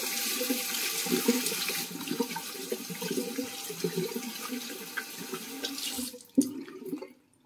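Tap water running into a sink as hands are rinsed under it; the water stops about six seconds in, followed by a brief knock.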